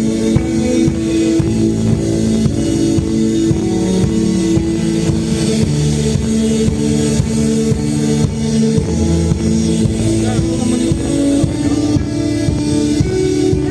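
Live instrumental post-rock band playing loudly: electric guitars hold sustained, ringing chords over steady, driving drums.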